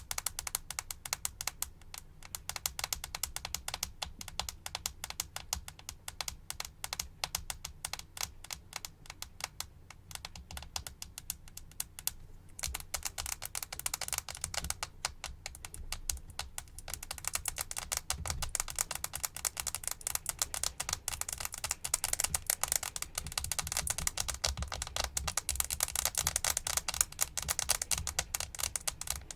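Fast, dense tapping clicks close to the microphone, an ASMR trigger. They become busier and louder about 12 seconds in and again a few seconds later.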